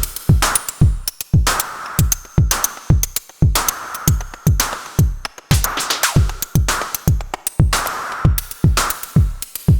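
Electronic drum-machine beat from an Elektron Analog Four MK2 synthesizer: a deep kick with a quickly falling pitch about twice a second, with hissy hi-hat and snare-like hits between the kicks.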